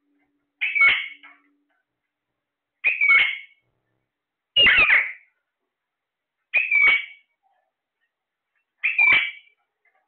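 Alexandrine parakeet calling: five loud, harsh calls, each under a second long, about two seconds apart.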